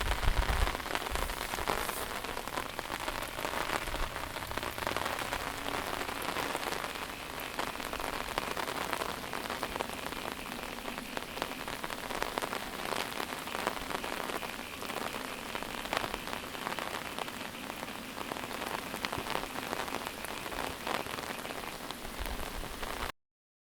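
Heavy monsoon rain falling steadily: a dense hiss thick with small drop hits. It cuts off suddenly near the end.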